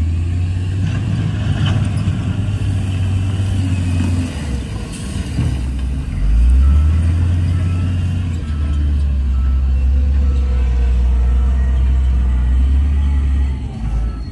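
Heavy diesel engines of a wheel loader and dump trucks running under load in a low, steady drone, revving up about six seconds in. A faint reversing alarm beeps through the second half.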